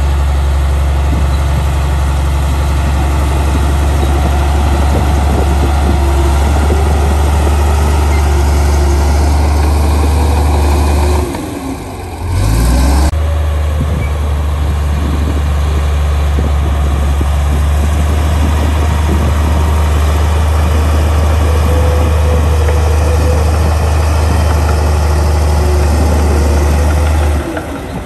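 Komatsu D53A crawler bulldozer's diesel engine running steadily with a deep drone as it pushes soil. The sound dips briefly about twelve seconds in, with a short change in engine pitch, and dips again near the end.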